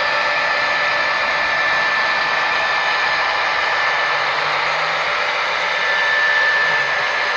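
Model train boxcars rolling past on their track: a steady rattling rumble of wheels on rail, with a thin steady high whine running through it.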